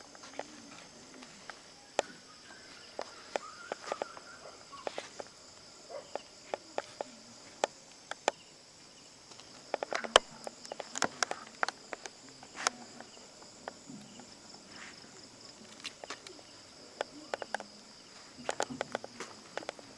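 Night insects, crickets, trilling in a steady high chorus, with scattered sharp clicks and light knocks that come in clusters about halfway through and again near the end.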